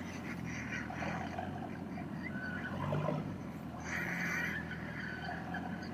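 Rock-crawler buggy's engine running steadily at low revs as it crawls up a sandstone crack, with a brief louder, higher-pitched patch about four seconds in.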